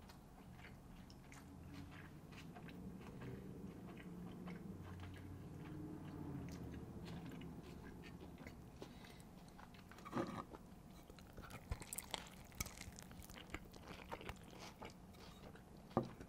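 Faint crackling and clicking as soft corn-tortilla tacos are picked up and moved about on a clay plate, sharper and more frequent in the second half. A low, wavering hum sits under the first half.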